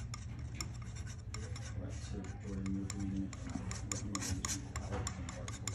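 Steel palette knife scraping and mixing oil paint on a wooden palette, in a run of quick, short scrapes and taps.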